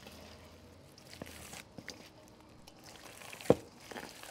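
Gloved hands kneading raw ground-meat meatloaf mixture in a stainless steel bowl, faint, with one sharp knock about three and a half seconds in.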